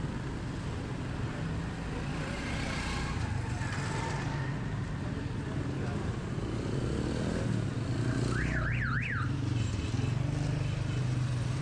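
Busy market street traffic: vehicle engines running steadily and passing. About eight seconds in, a short warbling alarm-like tone rises and falls three times in quick succession.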